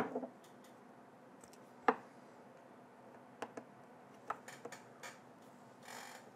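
Sparse small clicks and taps of a flat-blade screwdriver working at the plastic case of a small wireless nunchuck receiver, prying at its snap clips, with the sharpest click about two seconds in, several more a little later, and a short scrape near the end.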